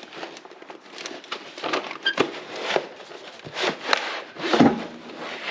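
A new wrench set being handled in its packaging and plastic tray: irregular clicks, knocks and rubbing.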